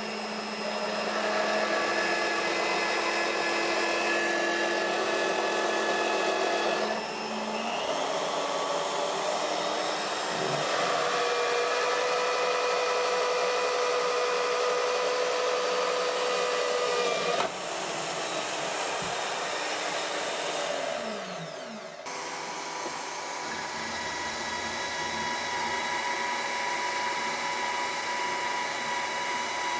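Bosch GSB 21-2 RCT corded drill in a drill stand, running and drilling a 5 mm hole through 5 mm steel plate. Its motor note shifts a couple of times, then winds down about 21 seconds in. A second drill motor, the Bosch PBD 40 benchtop drill press, then runs steadily through the same 5 mm steel.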